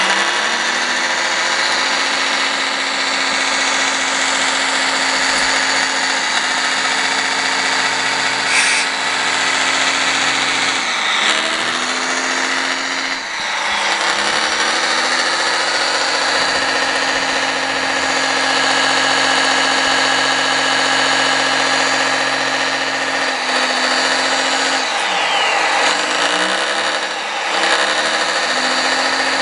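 Radio-controlled model hydraulic excavator working: a steady motor-and-pump whine, with the pitch sliding and dipping a few times as the boom and bucket move.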